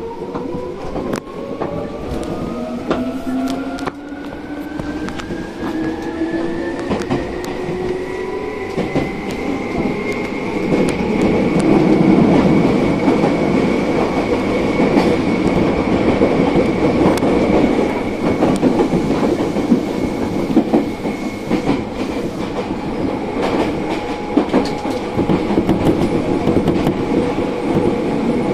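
Electric commuter train's traction motors whining as it accelerates out of the station. The pitch climbs for about ten seconds, then levels off at cruising speed, over the rumble of the wheels on the rails. Heard from inside the carriage.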